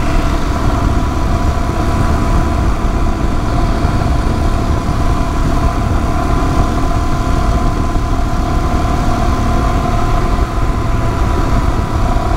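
Royal Enfield Himalayan's single-cylinder engine running steadily at highway cruising speed in a high gear, with wind rushing over the microphone.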